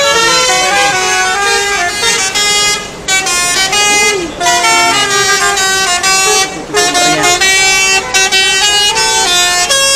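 Truck telolet horns, multi-tone musical air horns, sounding a loud run of held notes that step up and down in pitch, several tones at once, with short breaks every second or two.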